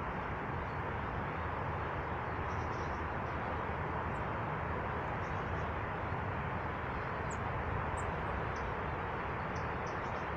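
Small birds at feeders giving short, high chirps scattered over a steady rushing background noise.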